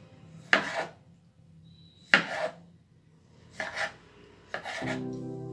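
Kitchen knife chopping a tomato on a wooden chopping board: about four slow cuts, each a knock of the blade on the board, roughly a second and a half apart. Background music comes in near the end.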